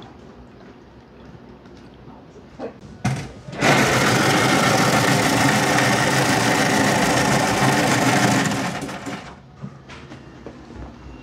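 Bingsu shaved-ice machine running, its motor humming steadily as it shaves ice into a plastic cup. It starts about three and a half seconds in and winds down about five seconds later.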